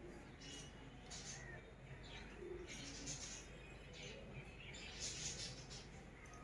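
A few faint, brief rustles against a quiet room as hands pick small candied-fruit pieces from a lid and set them on a cake.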